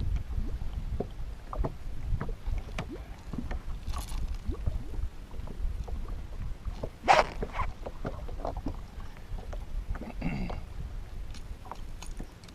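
Wind rumbling on the microphone on a small fishing boat, with scattered knocks and clicks from handling on board, and one sharp, louder noise about seven seconds in.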